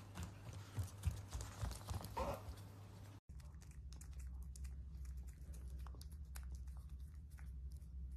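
Pet otter's feet pattering on a hard hallway floor as it runs, with a brief rising call about two seconds in. Then small wet clicks and smacks of the otter licking and nibbling its paw.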